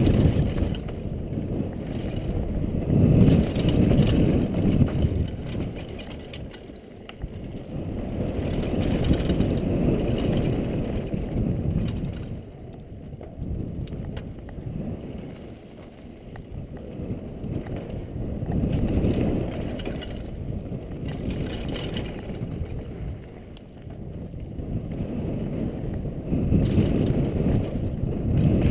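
Downhill mountain bike running fast over a rough, rutted gravel trail, heard from a helmet camera: tyres crunching over loose stones with the bike rattling over bumps, under a low rumble of wind on the microphone that swells and fades every few seconds.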